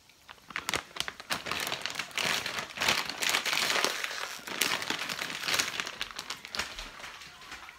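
Plastic bag of frozen french fries crinkling as it is handled, a dense crackling that swells a second or two in and fades toward the end.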